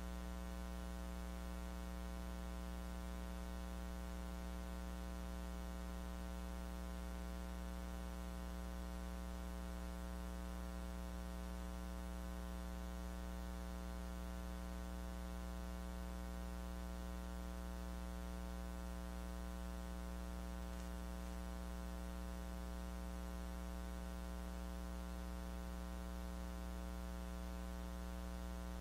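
Steady low electrical hum with many overtones over a faint hiss.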